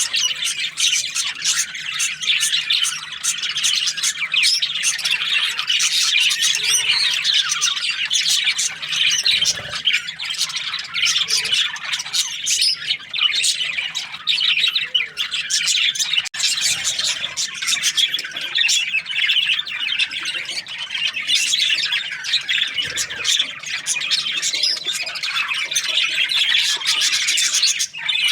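Budgerigars chirping and chattering without pause, many short calls overlapping.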